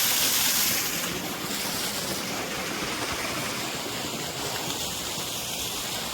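Steady rush of falling and flowing water from a waterfall and its pool, a little louder in the first second.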